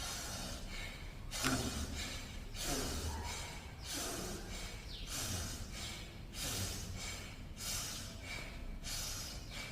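Bhastrika pranayama (bellows breath): forceful, audible breaths drawn in and pushed out hard through the nose in a steady rhythm, about one stroke a second.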